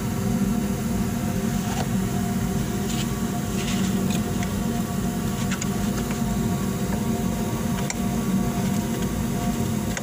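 A steady electric machine hum, with a few faint clicks and taps scattered through it.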